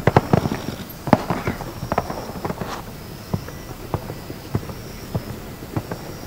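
Hoofbeats of a show-jumping horse cantering on a sand arena: irregular dull thuds, thickest in the first couple of seconds, then more spaced out.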